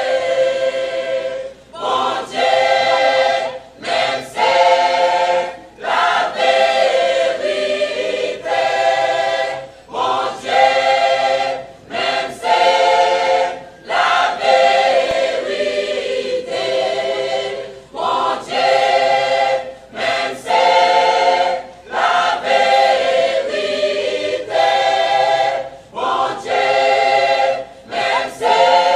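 Church choir of mostly women's voices singing a hymn in full, sustained chords, the phrases broken by short pauses roughly every two seconds.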